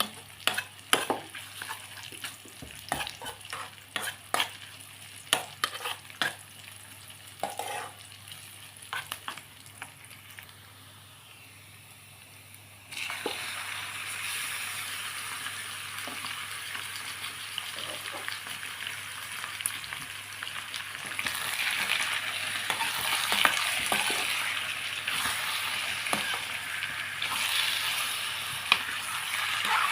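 Food being stirred in a frying pan, a utensil clicking against the pan several times over the first ten seconds. After a short lull it turns abruptly to a steady sizzle of food frying in oil, which grows louder over the second half.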